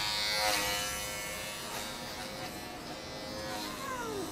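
Small handheld electric pet trimmer buzzing steadily as it clips a long-haired cat's fur, loudest in the first second and then fading under soft background music. A couple of falling whistle-like glides come near the end.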